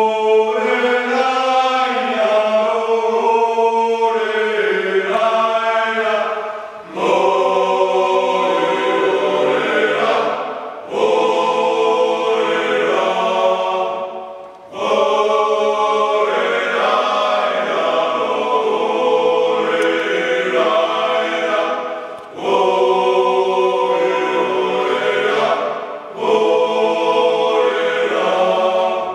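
Male a cappella choir singing a Svanetian (Georgian) round dance in sustained multi-part harmony. It moves in phrases of a few seconds, each ending in a brief drop before all the voices come back in together.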